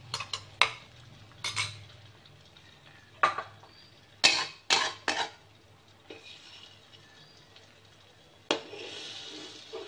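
Metal spatula and utensils clinking against a wok: a series of sharp clinks, then a longer scrape across the pan near the end.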